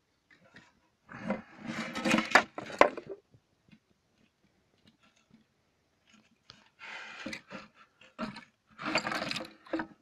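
Hard fiberglass shells being handled, rubbing and knocking against each other with a squeaky scrape, in three bursts of a second or two each.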